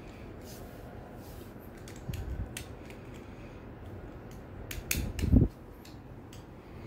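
Parts of an Infinity Nado spinning top being fitted back together by hand: faint clicks and handling knocks, with a soft bump about two seconds in and a louder cluster of knocks about five seconds in.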